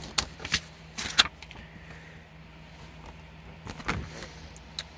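A plastic Blu-ray case being handled and closed: a series of sharp clicks and knocks, the loudest about a second in and a few more near the end, over a faint steady low hum.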